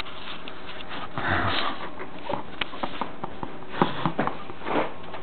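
A hand-held camera being handled and turned close to its microphone: scattered small clicks and rubbing over a steady hiss, with breathy sniffs near the mic.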